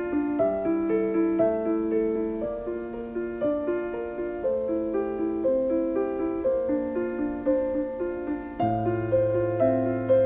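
Background piano music: a continuous flow of overlapping notes, with deeper bass notes coming in near the end.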